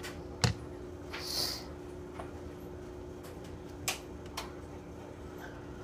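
Quiet room with a steady low hum, a few faint clicks of a handheld phone being handled, and a short hiss about a second and a half in.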